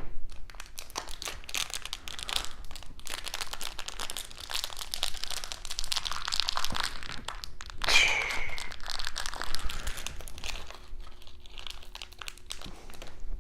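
Plastic packaging crinkling and rustling while parts are handled, a dense run of small crackles with one louder crackle about eight seconds in.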